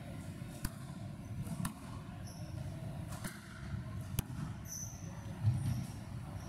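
Squash rally: four sharp knocks, roughly a second apart, of the ball struck by rackets and hitting the court walls, with a few short high squeaks of shoes on the court floor.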